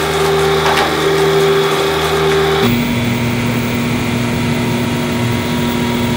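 Metal-cutting machine tool running steadily, its spindle giving a held pitched tone over a cutting noise. About two and a half seconds in it cuts abruptly to a different machining sound with a lower steady tone.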